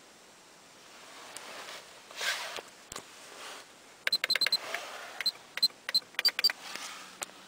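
Car stereo head unit being operated: a rapid run of about a dozen sharp clicks, many with a short high beep, as the volume is set. A soft rustle of handling comes about two seconds in.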